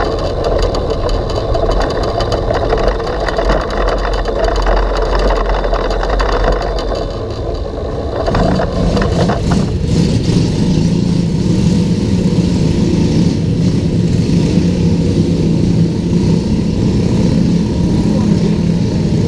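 Go-kart engine running, rough and busy for the first several seconds, then settling about eight seconds in into a steady idle.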